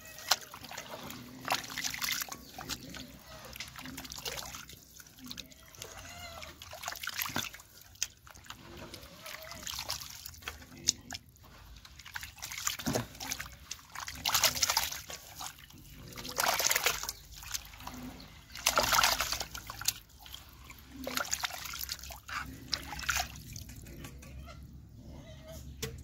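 Watery pig-feed mash being stirred by hand and scooped with a steel bowl in a large pot: irregular sloshing and splashing, with several louder splashes as the mash is lifted and dropped back.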